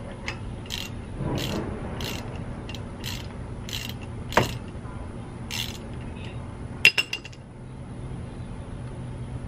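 Hand ratchet wrench worked in short repeated strokes on a car's front brake and hub assembly, then sharp metal clinks: one about halfway, and a quick cluster of several a little later.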